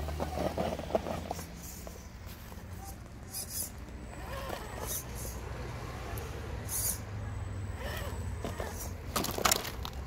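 Axial SCX10 RC rock crawler's small electric drivetrain running at crawling speed, a low hum that rises and falls as the throttle changes. Its tyres scrape and click over the rock, with the sharpest scrapes near the end.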